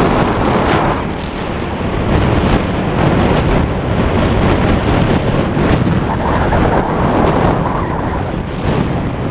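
Loud wind rush buffeting the microphone of a camera carried on a moving motorcycle, with the motorcycle's running and road noise mixed in.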